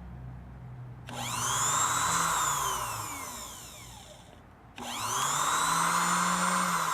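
Electric motor of a New Home 560 sewing machine, freshly reassembled with its stuck brushes freed, switched on twice for a test. Each time it whirs quickly up to speed and then slowly winds down, about a second in and again near five seconds. It runs smoothly, without binding.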